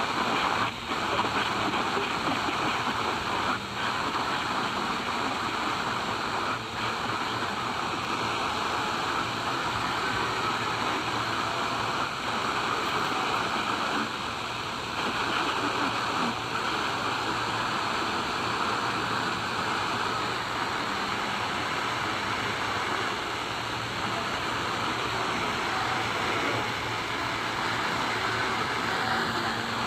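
Steady rushing noise, like hiss, with no breaks.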